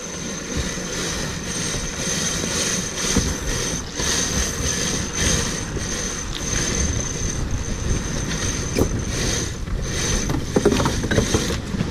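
Sailboat winches and deck gear working during a gybe: ratchet clicking and lines running through blocks, over a steady rush of wind and water. A few sharper clicks come near the end.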